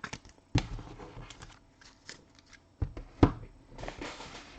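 Trading cards being handled and shuffled by hand, with a few sharp taps and knocks, the loudest a little past three seconds in, and a soft rustle near the end.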